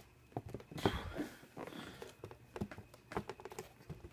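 Handling noise: scattered light knocks and clicks with a brief rustle about a second in, as the camera and shoes are moved about.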